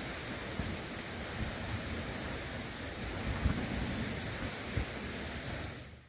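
Steady outdoor hiss with a few low rumbling thumps of wind buffeting the microphone; it fades out right at the end.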